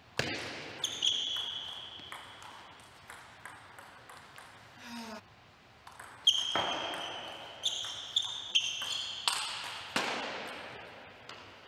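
Table tennis rallies: the celluloid ball is struck by rubber-faced rackets and bounces on the table in quick runs of sharp clicks, with a few harder hits that ring in the hall. High shoe squeaks on the court floor come about a second in and again from about six to nine seconds in.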